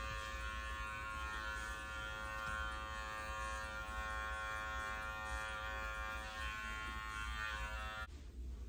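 Electric dog-grooming clippers with a #10 blade, running with a steady hum while clipping a puppy's coat. The hum cuts off suddenly near the end as the clippers are switched off.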